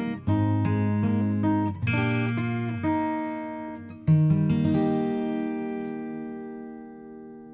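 Background music on acoustic guitar: picked notes, then a final strummed chord about four seconds in that rings on and fades away.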